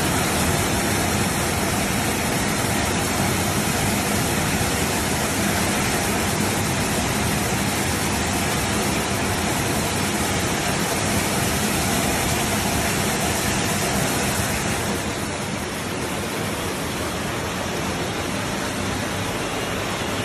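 ZJ-2500 can-sterilizing tunnel machine running: a steady rushing hiss with a low machine hum under it. It eases off a little about fifteen seconds in.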